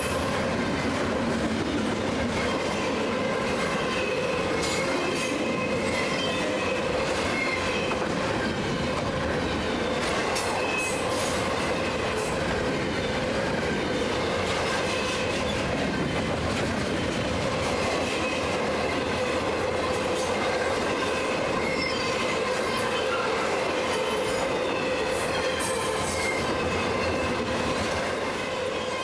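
Intermodal freight train's double-stack well cars and trailer flatcars rolling past on the rails. A steady, loud rumble of wheels on rail with a constant whine running through it and scattered clicks.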